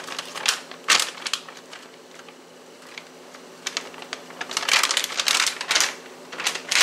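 Plastic resealable bag of precooked grilled chicken breast strips crinkling as it is handled and shaken over a pot, in bursts: around one second in, again from about four to six seconds, and sharply at the end.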